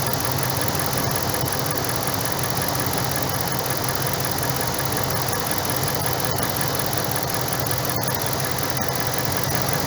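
2012 Dodge Ram's V8 engine idling steadily.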